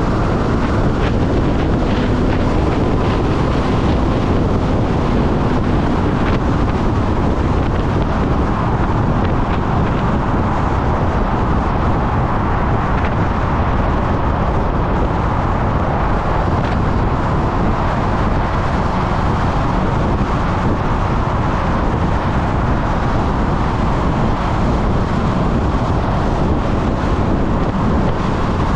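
Steady wind rushing over the camera microphone at riding speed, with the Honda CB400 Super Four's 399 cc inline-four engine running underneath.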